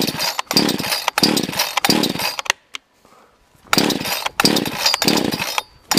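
Cheap off-brand two-stroke gas chainsaw being pull-started: the recoil starter cord is yanked four times in quick succession, then after a short pause three more times, with the throttle jammed part-open by a file. The engine cranks but does not keep running.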